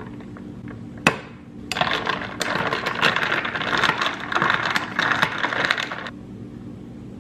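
A metal spoon stirring iced coffee in a glass can, with the spoon and ice cubes clinking rapidly against the glass for about four seconds before stopping. A single sharp knock comes about a second in.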